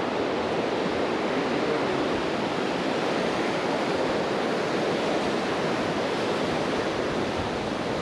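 A fast river rushing steadily, an even wash of water noise with no rises or breaks.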